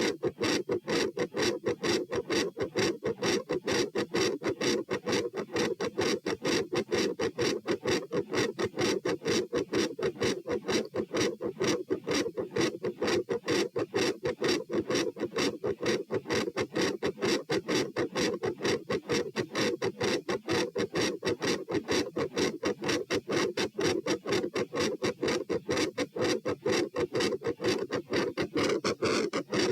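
Heartbeat heard through a stethoscope over the pulmonic area, beating fast and loud in an even, rapid train of lub-dub thumps.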